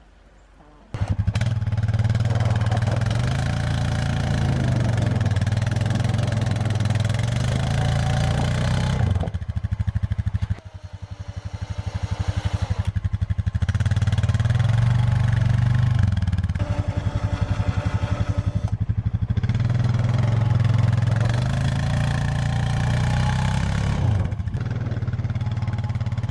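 ATV engine running hard while pushing a snow plow, with a steady firing pulse. It drops off briefly about ten seconds in, then pulls again.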